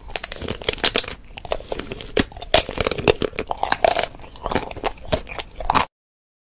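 A big plastic bag of popcorn crinkling and crunching as a man bites and chomps at it with his mouth: a dense, uneven run of crackles and crunches. The sound cuts off abruptly near the end.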